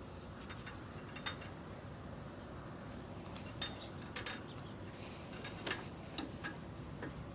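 Irregular light metallic clinks and ticks of hand tools and small metal parts being handled while a part is worked free from a pedal bike's rear axle assembly, over a low steady hum.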